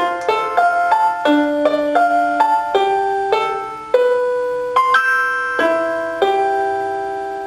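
Casio LK-120 electronic keyboard playing a melody of separate notes, each struck and then decaying. About six seconds in it lands on a final held note that slowly fades away.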